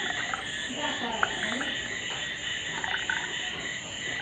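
Steady chorus of frogs and insects: a continuous high chirring with a shriller trill beating in regular pulses, and scattered croaks and a few faint clicks.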